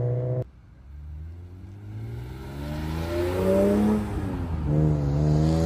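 Car engine running steadily, its sound cutting off abruptly about half a second in; then a car engine revs up with a rising pitch, eases off briefly about four seconds in, and revs again.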